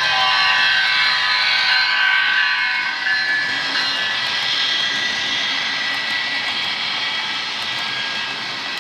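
HO-scale model Amtrak passenger train running past, with a steady chord of high tones over a hiss. Some of the tones slope down in pitch during the first few seconds.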